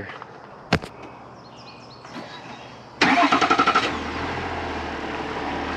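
A car engine is cranked and starts about three seconds in, with a rattling burst as it catches, then settles into a steady idle. A single click comes just under a second in.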